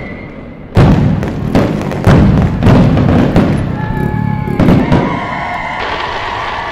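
Fireworks going off: a rapid series of bangs and crackling bursts from aerial shells and rockets. About five seconds in the bangs thin out, and a steady held tone carries on beneath them.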